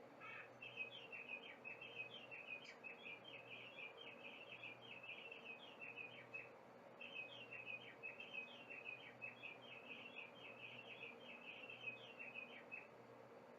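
Recorded songbird song played faintly from a battery-powered bird clock: a rapid high twittering in two long phrases, broken by a short pause about six and a half seconds in.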